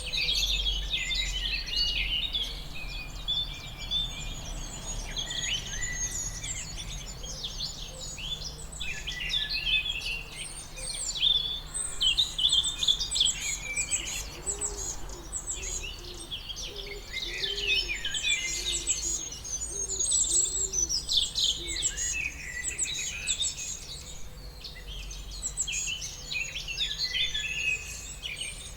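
A chorus of several songbirds chirping and singing at once, with dense, overlapping high chirps throughout. A few lower, repeated arched notes come in the middle, over a steady low hum.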